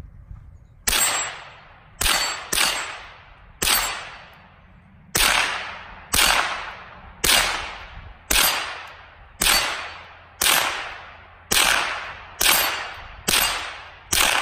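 Marlin Model 60 semi-automatic .22 LR rifle firing about fourteen shots at a steady pace of roughly one a second, each sharp crack trailing off in a short echo.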